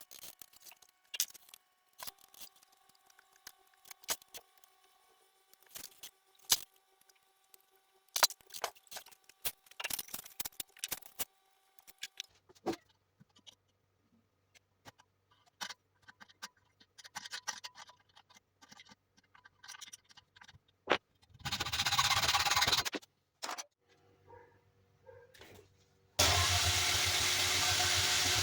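Homemade belt sander driven by a washing-machine motor: clicks and knocks of parts being handled, then the sander running loud and steady for about a second and a half about 21 seconds in, and switched on again about 26 seconds in.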